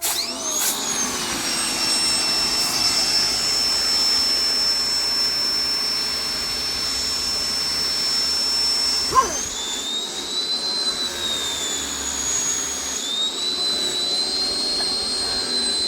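Ryobi 1900 PSI electric pressure washer running and spraying water: a steady high whine over a hiss, starting suddenly. About nine seconds in, a click comes and the whine shifts higher in pitch.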